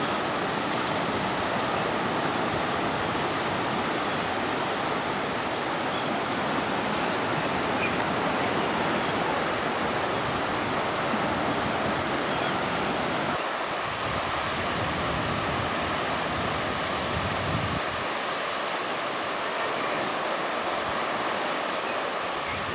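Steady rushing noise of sea waves and wind, with no distinct events.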